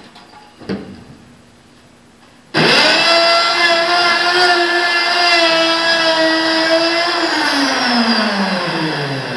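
Hand-held trigger router switched on abruptly, running at a steady high-pitched whine while it cuts the 4-inch inspection hole in the aluminum wing skin through a template. About three quarters of the way in it is switched off and winds down, its pitch falling steadily as it is held in place until it stops.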